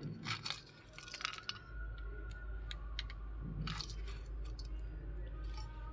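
Cashew nut pieces sprinkled by hand onto thick batter in a steel bowl: scattered small soft clicks and taps in two clusters, over a low steady hum that starts about two seconds in.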